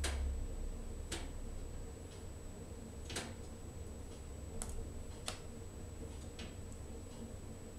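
Wood burning in a closed wood stove: the log gives off sharp, irregular pops and crackles, the loudest right at the start and a handful more spread unevenly after it, over a steady low rumble of the fire.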